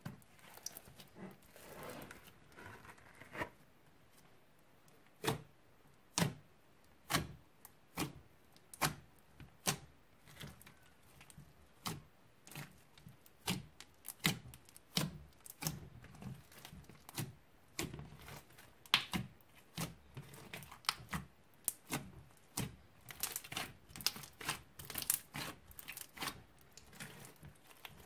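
Slime being kneaded and folded by hand, with sticky crackling and a run of sharp pops and clicks as air pockets burst: about one pop a second through the middle, quickening to several a second near the end.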